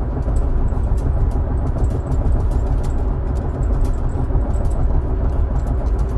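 Steady road and engine rumble heard from inside a moving car cruising on a smooth stretch of highway, with faint scattered ticks.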